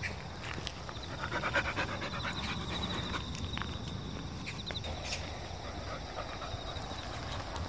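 Labrador retriever panting, heaviest from about one to three seconds in, over a steady high trill.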